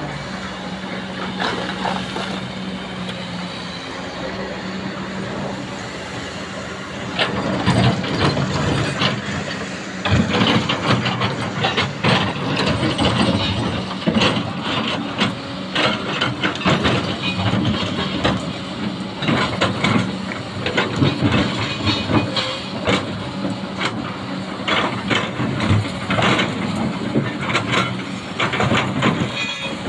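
Excavator running with a steady engine hum; from about seven seconds in, loud irregular metallic clanking and knocking of the machine at work.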